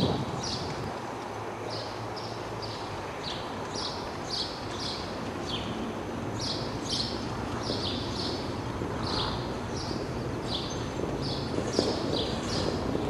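Birds chirping: short high chirps repeating two or three times a second over a steady background hiss.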